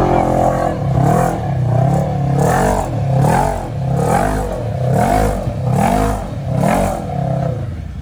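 Side-by-side UTV engine revving hard in repeated rising-and-falling surges, about one every two-thirds of a second, as the machine churns its way out of a deep mud hole.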